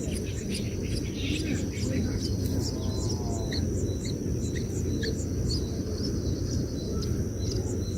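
Many short, high bird chirps scattered throughout, over a steady high-pitched whine and a constant low rumble.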